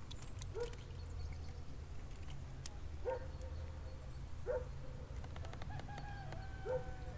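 An animal calling four times, every second or two: each call is a short note that rises and then holds steady.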